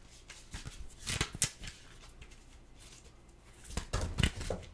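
Tarot cards being handled and laid out on a table: papery slides and sharp taps, in a cluster about a second in and another near the end.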